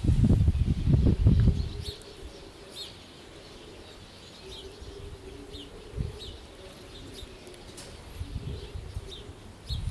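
A large flock of bramblings calling, short high chirps scattered throughout, over a gusty low rumble that is loudest in the first second and a half and returns more weakly near the end.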